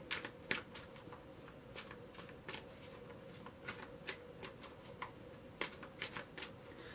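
A deck of tarot cards being shuffled by hand: faint, irregular soft clicks and snaps of the cards, a few a second, over a low steady hum.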